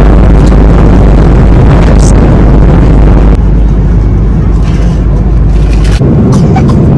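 Airliner cabin noise in flight: a loud, steady rush and low rumble of the engines and airflow. Its tone shifts slightly twice, about three and a half and six seconds in.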